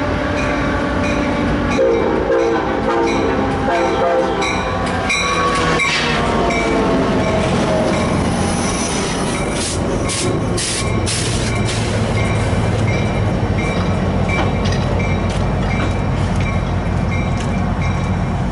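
Amtrak San Joaquins passenger train arriving at a station platform. The horn sounds for about the first five seconds, then the bi-level cars roll past with steady wheel and rail noise and some squealing as it slows.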